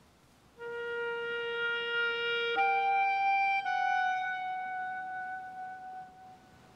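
Film score music: a single sustained instrument plays a slow line of long held notes, one at a time, entering about half a second in, leaping to a higher note partway through, then fading away near the end.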